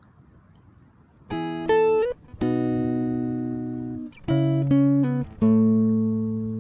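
Guitar music with slow plucked notes and held chords, each ringing out and fading, starting about a second in after faint background noise.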